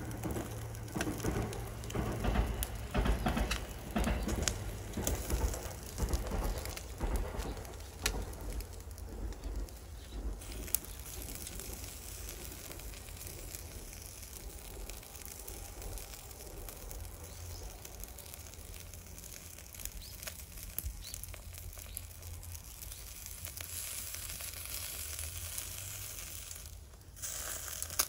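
Miso-marinated redfish fillet sizzling over charcoal on a shichirin grill. It crackles and pops densely for about the first ten seconds, then settles to a softer, steady sizzle. A low steady rumble runs underneath.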